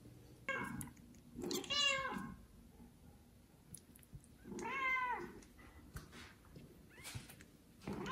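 Newborn kitten meowing high and loud, three times: a short meow, then two drawn-out calls that rise and fall in pitch. These are a kitten's calls for its mother.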